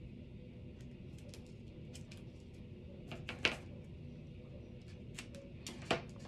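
Paper and tape being handled on a craft table: scattered light clicks and taps, with two sharper clicks about three and a half and six seconds in.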